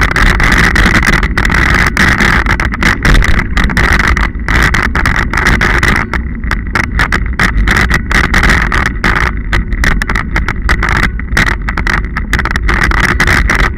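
Loud, steady wind and rolling noise on the microphone of a camera riding a mountain bike along a dirt-and-gravel track, cutting in and out many times.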